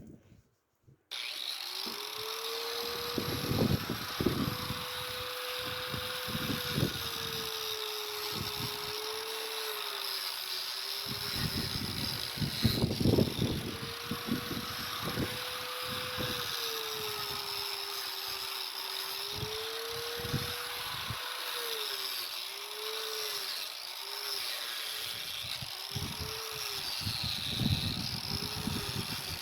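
Electric grinder grinding out the mortar from cracked brick joints, starting about a second in. Its motor whine dips in pitch as the blade bites into the joint and climbs back as it eases off, over a steady gritty hiss.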